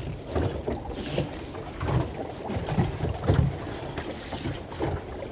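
Water lapping and sloshing against the hull of a small fishing boat, in uneven low knocks, with wind buffeting the microphone.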